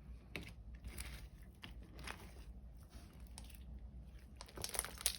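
Homemade slime being kneaded and squished by hand as lotion is worked in: faint sticky clicks and small crackling pops, a little busier near the end.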